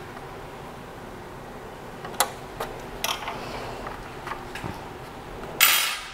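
Knocks and clicks of a 3D printer's aluminium gantry frame being handled and fitted onto its base, with a short hissing scrape near the end as the loudest sound.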